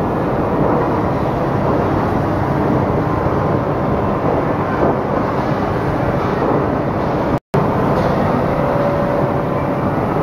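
Steady, loud machinery noise from a running high-frequency (radio-frequency) edge glue press in its heating cycle, among other factory machines. A faint steady tone runs through it. The sound cuts out completely for an instant about seven and a half seconds in.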